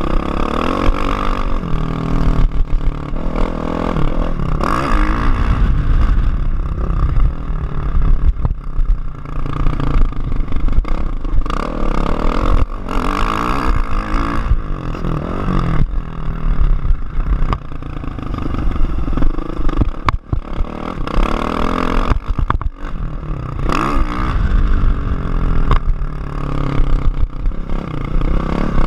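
Kawasaki KX450F single-cylinder four-stroke motocross engine being ridden hard, its pitch repeatedly climbing under throttle and dropping at gear changes and corners. Wind buffeting and knocks from the bike-mounted camera run through it.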